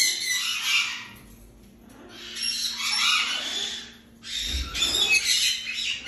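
Parrots squawking: harsh, raspy calls in three bouts of one to two seconds each, with short lulls between them.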